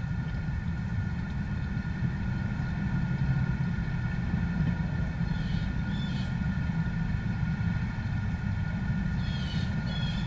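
A steady low rumble with a few short bird chirps, about halfway through and again near the end.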